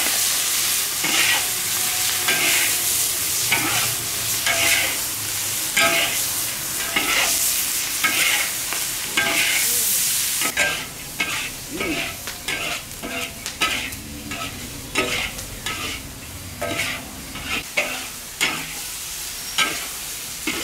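A long metal spatula scraping and turning small river fish with chili, garlic and ginger in a large iron wok, the food sizzling in hot oil. The sizzle is strong at first and drops about halfway through, leaving the spatula strokes on the iron standing out, about one or two a second.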